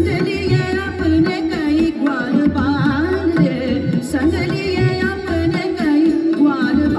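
Indian classical-style devotional song to Krishna: a singer's ornamented melody over tabla.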